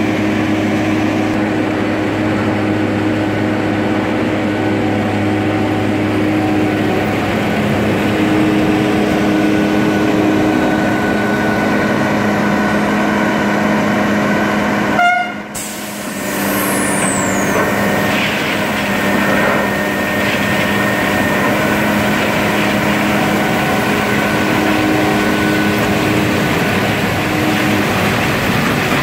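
SUZ 500 track-renewal train at work: a loud, steady drone of its engines and hydraulic machinery, with several steady whines layered together. The sound cuts out for a moment about halfway, then resumes with a faint falling high whine.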